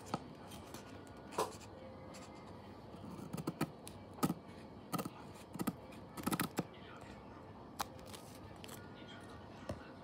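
Stickers and paper being handled: scattered light taps, clicks and rustles at an uneven pace.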